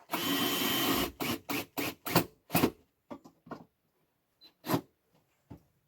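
Power drill driving a wood screw: one steady run of about a second, then a quick series of short trigger bursts as the screw is snugged home, followed by a few fainter short bursts.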